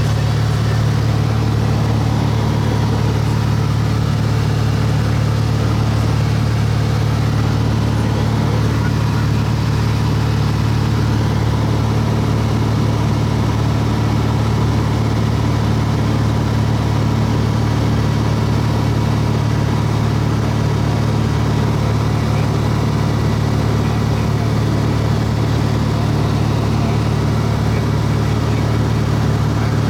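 Light aircraft's piston engine and propeller droning steadily at cruise, heard from inside the cabin, with a strong low hum and no change in pitch.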